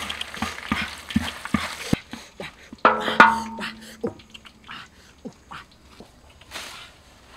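Crickets frying in oil in a large wok, sizzling and crackling, with the regular knock of a stirring stick against the pan. About three seconds in, a loud drawn-out pitched animal call lasting about a second cuts across it, followed by faint scattered clicks.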